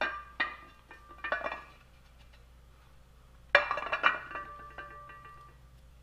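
Metal clinks and clatter from a cast-aluminum 6.0 Powerstroke oil cooler housing being handled on a concrete floor: a few light knocks, then a louder clatter about three and a half seconds in, each leaving a short metallic ring.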